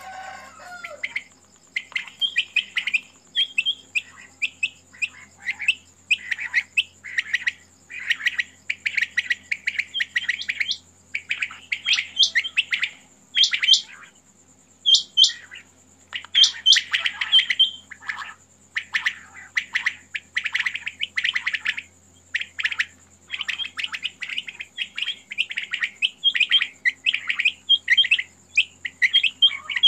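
Many caged quails calling together: dense, overlapping chirps and twitters coming in quick clusters, with a couple of short pauses.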